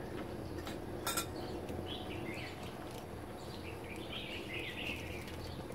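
A single light clink of tableware about a second in, with faint bird chirping in the background.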